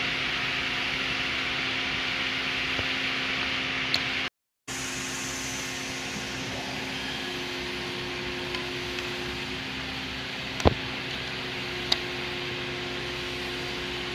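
Steady hiss and hum of machinery, like a fan, with a few short sharp clicks of metal being handled while a seal is fitted to a hydraulic cylinder piston; the loudest click comes about two-thirds of the way in. The sound drops out briefly about four seconds in.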